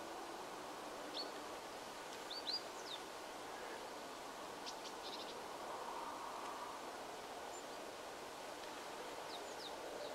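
Small birds giving short, high chirps in scattered small groups over a faint, steady outdoor background hiss.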